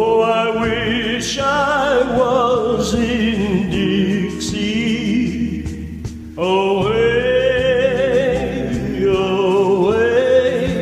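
A high singing voice holds long notes with wide vibrato over a sustained backing accompaniment, in two long phrases; the second phrase begins about six seconds in.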